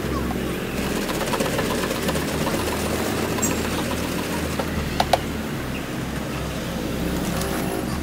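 Street traffic and engine rumble, steady, with two short metallic clinks close together about five seconds in.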